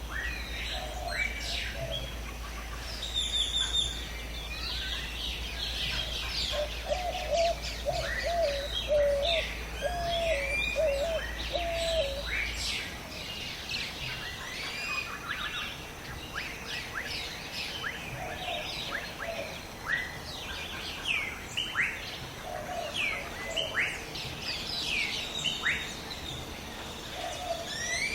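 A chorus of many birds chirping and calling over one another. Under the quick high chirps, a lower call repeats as a run of notes for several seconds in the middle. A faint low hum underneath stops about halfway through.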